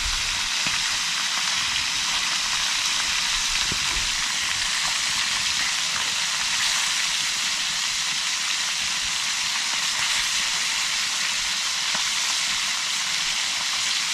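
Fish frying in a pot, a steady sizzle with no break.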